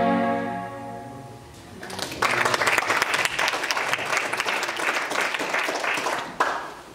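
The band's final held chord rings out and fades, then an audience applauds for about four seconds; the applause drops away abruptly near the end.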